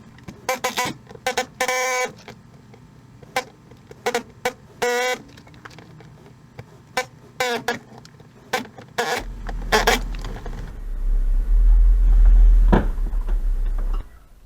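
A run of sharp metallic knocks and clanks, some of them ringing briefly. About nine seconds in, a steady low machine hum sets in, grows louder for a few seconds, then cuts off near the end.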